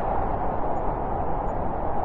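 Blizzard wind blowing steadily, a dense even rush without gusts or breaks.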